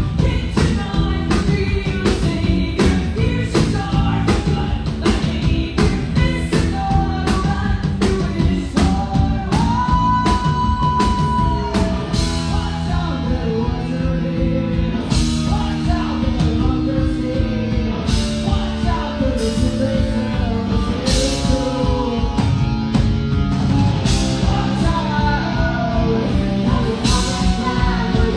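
Live rock band playing with drums, guitar and a sung vocal line. Fast, steady drum hits lead into a long held sung note, then cymbal crashes mark the beats through the second half.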